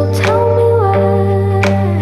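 Background music: slow sustained notes over a held bass, with a light steady beat and a sung or hummed melodic line.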